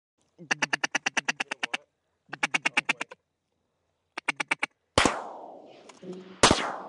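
Three fast runs of quacking from a duck call, then two shotgun blasts about a second and a half apart, each echoing off across the open marsh.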